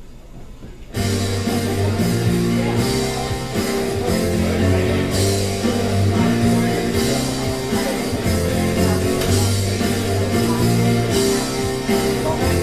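Instrumental intro of a rock song: guitar-led band music that starts suddenly about a second in, before any singing.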